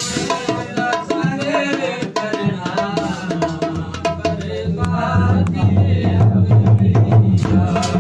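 Hindko mahiye sung by a man, accompanied by fingers tapping a quick, busy rhythm on an upturned metal platter played as a drum.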